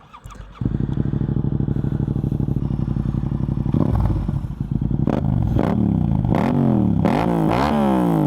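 Yamaha MT-07 parallel-twin engine breathing through an Akrapovic full exhaust with the dB killer removed: it fires up within the first second and idles steadily, then is given a series of quick throttle blips, the pitch rising and falling with each.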